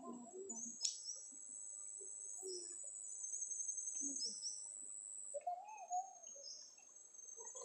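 Steady high-pitched insect buzzing with short, repeated bird chirps over it, and one sharp click about a second in.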